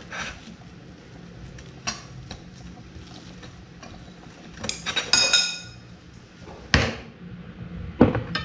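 Chopsticks tapping and scraping on a porcelain plate while flaking cooked mackerel apart, with a few sharp clinks of tableware; one clink about five seconds in rings on briefly.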